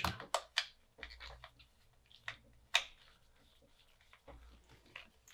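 Irregular small clicks and taps from handling tools and parts on a workbench, with a sharper click about three seconds in.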